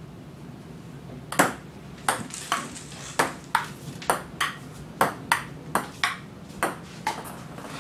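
Table tennis rally: the celluloid ball clicking off paddles and the table in a quick run of sharp taps, about two to three a second, starting about a second and a half in.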